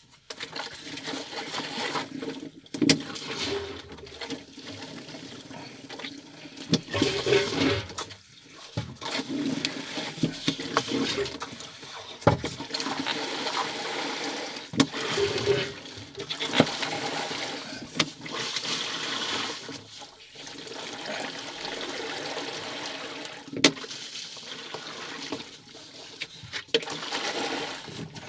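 Manual diaphragm bilge pump worked by hand lever to prime a 12V centrifugal ballast pump: repeated strokes with water gurgling and sloshing through the pump and hoses, and sharp clicks between strokes.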